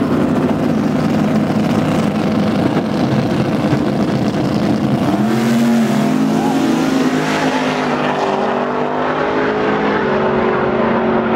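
Chevrolet Silverado pickup's engine running hard at the drag-strip line, then accelerating away down the strip, its pitch climbing and stepping up through gear shifts from about five seconds in.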